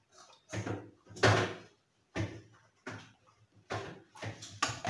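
Kitchen dishes and utensils handled on a stone countertop: a string of sudden knocks and clatters, about half a dozen, the loudest about a second in.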